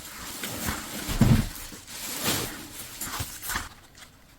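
Handling noise of paper and plastic packaging being rustled and shifted, with a soft thump about a second in.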